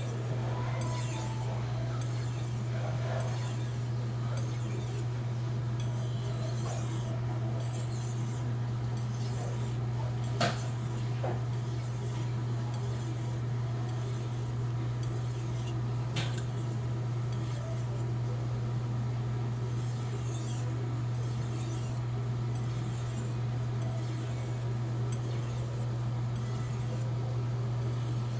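Steel kitchen knife blade being stroked back and forth on a whetstone, a rasping scrape about once a second, over a steady low hum. Two sharp clicks sound about ten and sixteen seconds in.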